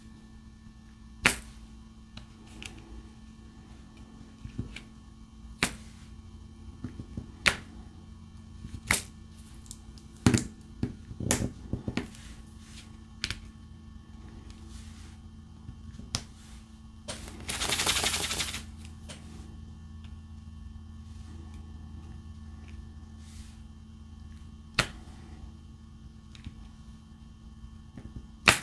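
Diamond-painting drill pen picking up resin drills from a plastic tray and pressing them onto the canvas: scattered sharp clicks and taps a few seconds apart, with a low steady hum underneath. About two-thirds through there is a brief rustle lasting about a second.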